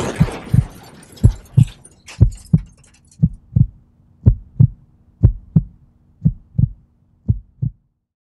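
Heartbeat sound effect: paired low thumps, lub-dub, about once a second, seven pairs in all, stopping suddenly near the end. Under the first beats the noise of a crash dies away over the first second or so.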